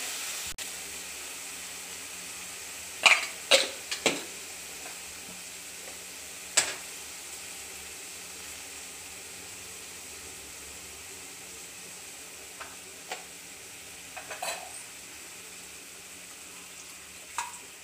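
Diced snake gourd in water heating in a wok, with a steady sizzling hiss. A few sharp taps come about three to four seconds in and again near seven seconds, with fainter ones later.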